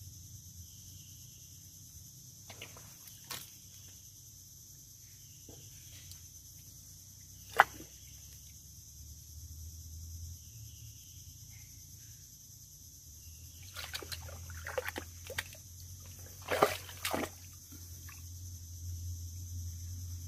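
Muddy water sloshing and squelching as a hand gropes down a flooded mud crab burrow among mangrove roots. It comes in scattered short splashes, with one sharp loud one about a third of the way in and a cluster of them in the last third, over a steady high-pitched drone.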